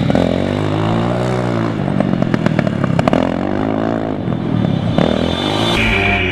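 Formula SAE race car's turbocharged KTM engine revving up and down as it drives through the cones, its pitch rising and falling several times, with a run of sharp cracks about two to three seconds in. Near the end the sound changes to a steadier engine note with a high steady whine over it.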